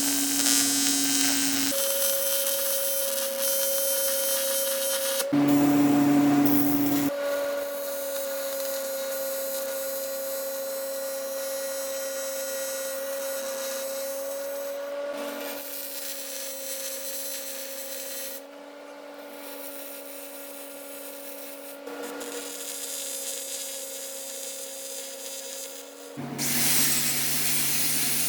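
A handheld power tool, such as a die grinder or sander, running with a steady whine and rubbing against the work. The sound comes in several short stretches, and its pitch and loudness shift at each abrupt cut.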